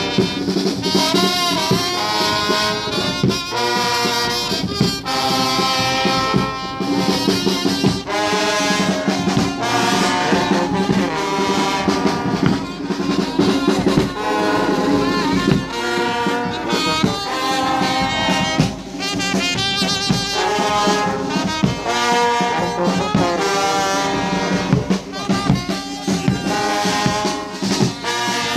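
A walking brass band of trumpets, trombones and tubas playing a tune without a break.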